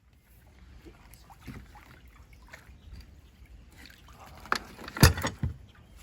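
Magnet-fishing haul being pulled in and handled: scattered knocks and clunks over a low rumble, with a sharp thump about five seconds in.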